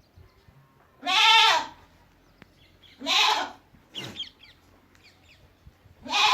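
Local desi goats bleating: three loud calls about two seconds apart, each rising and then falling in pitch, with a shorter, weaker call between the second and third.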